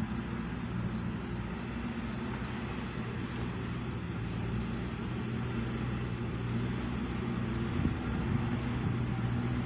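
A steady low mechanical hum, like a nearby engine running, over even outdoor background noise.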